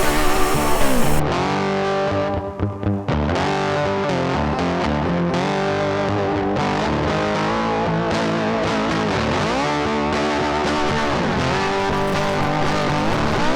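Background music led by a distorted electric guitar with bending notes. A loud hiss covers it for the first second or so and cuts off suddenly.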